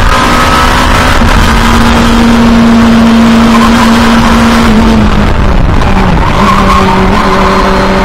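Race car engine heard from inside the cockpit, running hard on track with a steady pitch that dips briefly about five seconds in, then holds level again.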